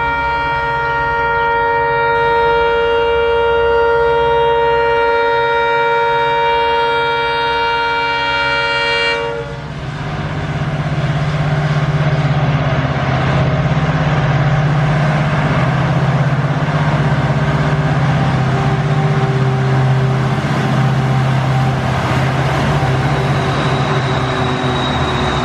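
Twin diesel freight locomotives, a WDG4D and a WDG4 with EMD two-stroke V16 engines, sound one long horn blast for about the first nine seconds. The horn then stops and the locomotives' engines and the loaded open wagons are heard passing close by.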